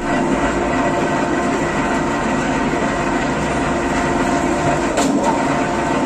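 Steady machine noise with a constant hum, loud and unchanging throughout.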